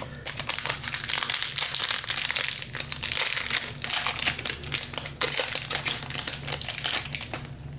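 Foil trading-card pack wrapper crinkling and crackling, with quick close-up rustles and clicks as the pack is handled and opened.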